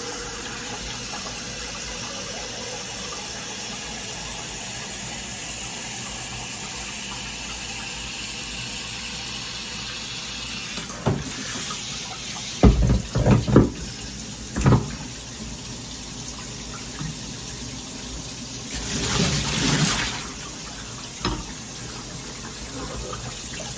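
Shower head spraying water in a steady hiss. Several knocks come about halfway through, and a brief louder rush of spray follows later.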